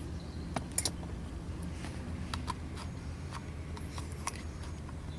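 Irregular small clicks and light metallic rattles of parts and a screwdriver being handled during hands-on repair work, the sharpest just under a second in, over a low steady hum.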